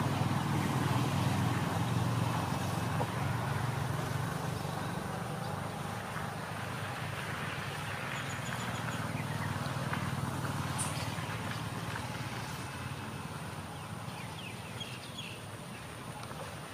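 A low, steady engine hum, likely a motor vehicle in the background, slowly fading over several seconds, with a faint outdoor hiss behind it.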